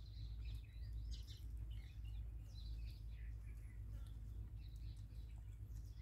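Outdoor ambience of small birds chirping, with many short scattered chirps and quick pitch sweeps, over a steady low rumble.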